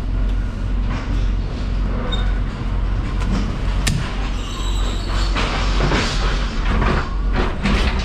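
Steady low machine drone, with clattering knocks of crates and pallets being handled and one sharp click about four seconds in; the knocking comes thicker in the second half.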